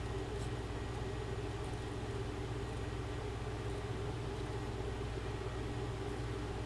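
Steady low hum of a running machine, even throughout, with no separate strokes or clicks.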